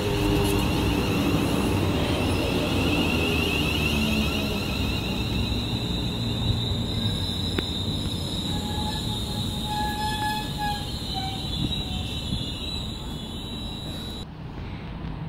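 Class 350 Desiro electric multiple unit drawing to a stop at the platform: the traction motor whine falls in pitch over the first couple of seconds. The standing train then gives a steady high-pitched electrical whine over a low rumbling hum, until the whine cuts off suddenly near the end.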